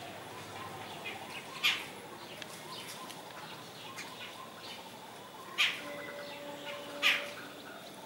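Babbler calling: three short, loud calls, about a second and a half in and twice more near the end, over fainter chirping. A faint steady tone sounds briefly between the last two calls.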